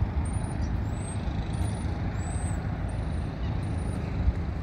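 Steady low outdoor rumble with no distinct events, with faint high chirps recurring above it.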